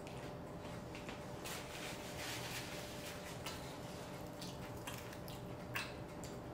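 Mouth sounds of someone eating fried food: soft wet smacks and clicks of chewing, scattered irregularly, over a faint steady hum.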